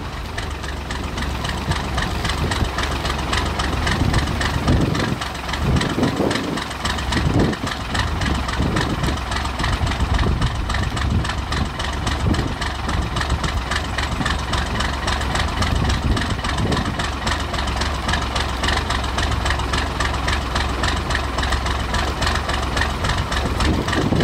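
First-generation Dodge Ram's 5.9-litre Cummins inline-six turbodiesel idling low and steady with an even diesel clatter. It is still cold from a start at about −7 °F, cold enough that it wants to idle at about 400 rpm.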